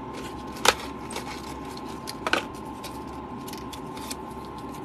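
Small plastic clicks and handling rustle from pocket hand sanitizer spray bottles and their clips being fiddled with: one sharp click under a second in and another a little past two seconds, over a steady low hum.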